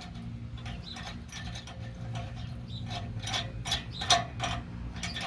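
Ratchet wrench clicking while running nuts onto an exhaust pipe clamp: a quick series of clicks, louder and denser in the second half.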